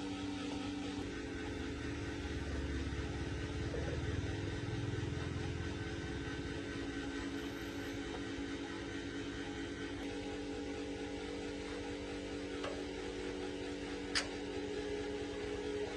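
An electric motor running with a steady hum, with a single sharp click near the end.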